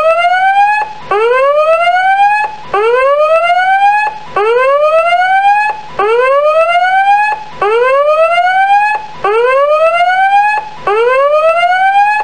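Electronic end-of-countdown alarm: a loud whooping tone that rises in pitch over about a second and a half, then breaks off briefly and starts again. It repeats about eight times.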